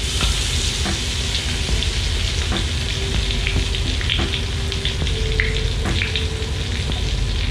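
Ground spice paste frying in hot oil in a wok, a steady sizzle, with light clicks and scrapes of the spatula and spoon against the cup and pan.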